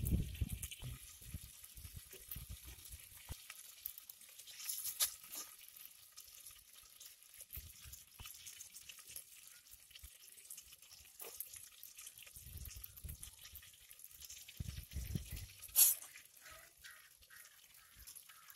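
A masala-coated piece of red snapper frying in hot oil in a clay pot: a faint steady sizzle with scattered small pops, and one sharp pop near the end.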